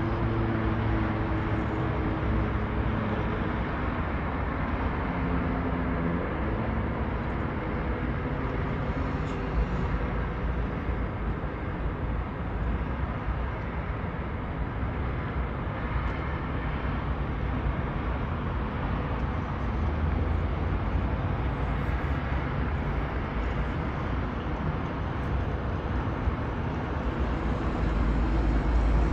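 Steady noise of congested road traffic: many car and truck engines and tyres blending into a continuous hum. An engine's drone stands out in the first several seconds, and a low rumble swells near the end.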